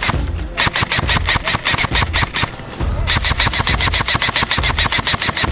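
Airsoft guns firing full-auto in long rapid bursts of sharp, evenly spaced clicks, with brief pauses about half a second in and near three seconds.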